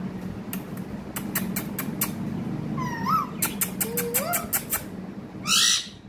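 Indian ringneck parakeet making a quick series of sharp clicks and short rising whistles, then a brief loud harsh squawk near the end, over a steady low hum.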